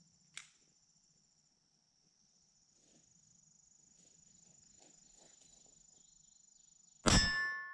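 Crickets chirping steadily; near the end a rifle shot strikes a steel target, which rings with a clang that fades.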